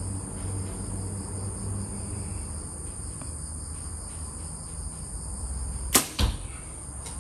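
A compound bow shot: a sharp snap of the string and cams on release, then about a quarter second later a thud as the arrow strikes the foam target.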